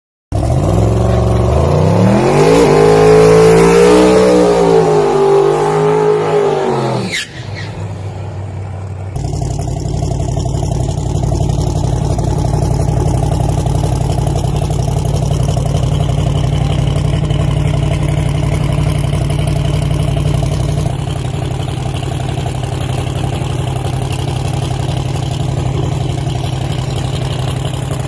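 Pro Mod drag car's engine revving hard, its pitch swinging up and down, for about seven seconds. It cuts off abruptly, then settles into a steady, loud lumpy idle.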